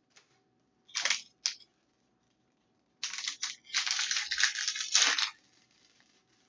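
Foil trading-card pack wrapper crinkling and tearing as it is opened: two short crackles about a second in, then about two seconds of continuous crinkling.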